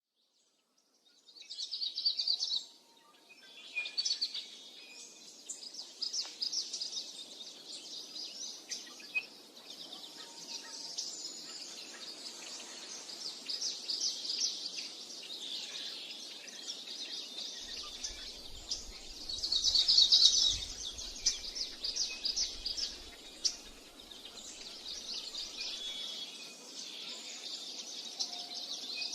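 Birds chirping and singing in a dense, continuous chorus of rapid high-pitched chirps, with a louder flurry about twenty seconds in.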